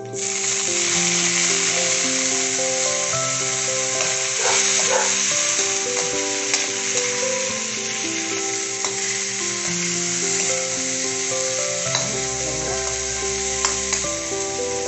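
Chicken pieces going into hot oil with sautéed garlic and onion in a frying pan, sizzling loudly from the moment they go in and keeping up a steady sizzle, with a few sharp clicks along the way.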